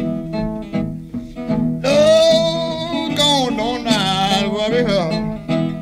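Country blues played on guitar and harmonica: a steady picked guitar pattern, with a long, bending lead note held from about two seconds in.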